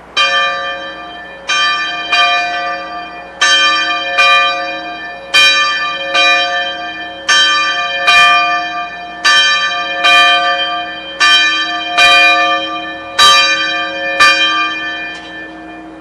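Church steeple bell ringing, about sixteen strokes in uneven pairs roughly a second apart. Each stroke keeps ringing under the next.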